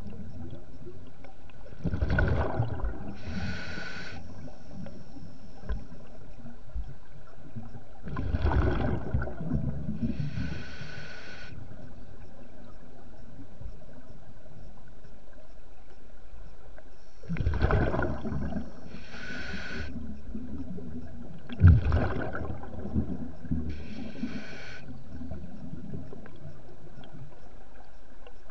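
Scuba diver breathing through a regulator underwater: four slow breaths several seconds apart, each a surge of noise followed by a higher hiss, over a steady underwater hiss.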